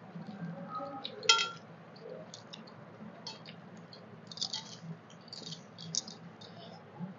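Eating by hand from stainless-steel plates: fingers mixing rice on the plates and small chewing and mouth sounds, as scattered soft ticks and crackles. One sharp metallic clink about a second in is the loudest sound.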